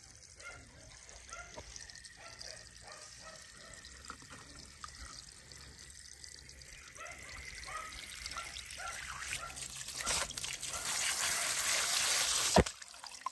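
Jet of water sprayed onto a muddy toy tow truck to rinse it: faint trickling at first, then a steady hiss that grows louder and stops abruptly near the end.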